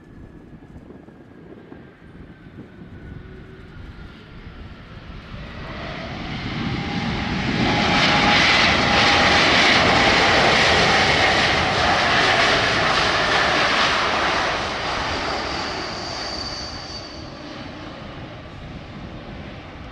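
Airbus A220's Pratt & Whitney geared turbofan engines as the jet moves past on the ground: the jet noise, with a few steady whining tones, swells over about five seconds, peaks for several seconds, then fades as it moves away.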